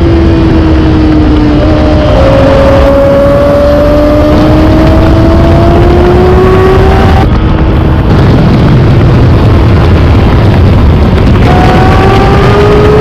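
Yamaha sportbike's inline-four engine at high revs under hard acceleration on track, its pitch climbing for several seconds, dropping off briefly about halfway through, then climbing again near the end, with heavy wind rush over the onboard microphone.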